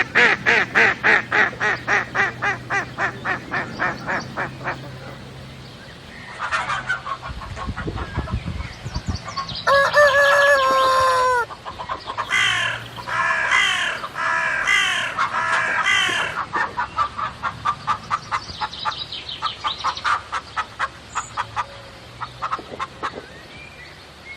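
Domestic farmyard fowl calling. There are quick runs of short repeated calls, about five a second, near the start and again in the second half. About ten seconds in comes one long drawn call, followed by a series of louder arched calls.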